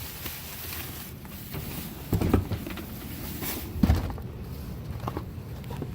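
Rustling and handling noises from rummaging through a dumpster, with a few short knocks, the loudest about four seconds in, over a steady low rumble.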